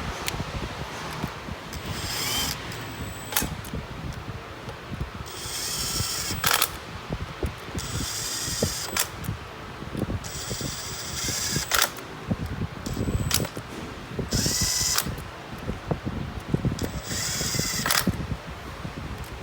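Handheld power tool whirring in about five short bursts of roughly a second each, with sharp clicks between them, over a steady low hum.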